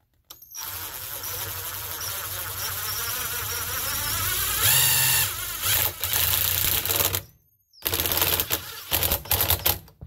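Cordless impact driver hammering a self-tapping screw through a metal strut bracket into the RV door frame: one long run of about seven seconds that grows louder, a brief stop, then several short trigger bursts near the end.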